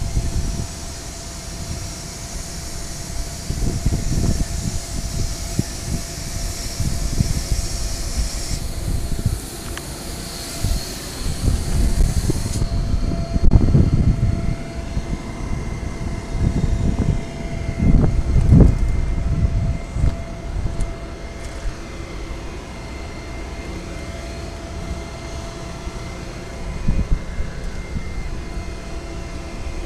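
Steady machinery hum with a faint constant whine, under an uneven low rumble that swells several times.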